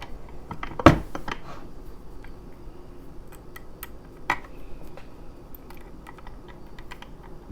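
Scattered small metallic clicks and taps from a padlock and lock-picking tools being handled. The sharpest click comes about a second in, another about four seconds in.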